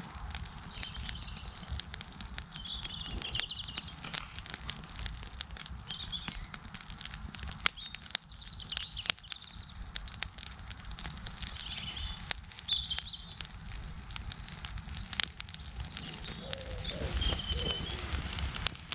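Dry grass tinder bundle smouldering and catching flame, giving scattered sharp crackles and pops, as a fire lit with flint and steel takes hold. Small birds chirp repeatedly over a low steady rumble.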